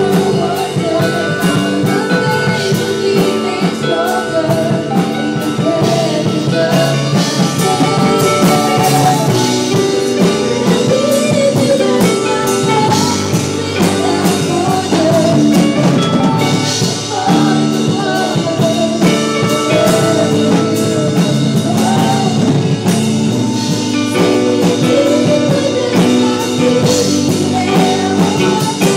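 Live band rehearsing a song: female vocalists singing into microphones over electric guitar and drums, played through an amplified PA in a small room.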